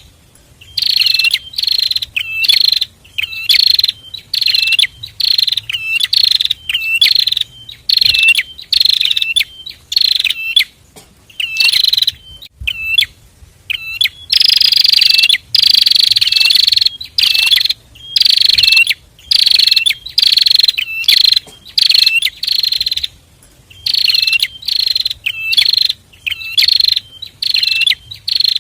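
A pair of prinias (prenjak) singing loudly: high, sharp notes repeated in quick phrases about once a second, with a longer unbroken run of song near the middle.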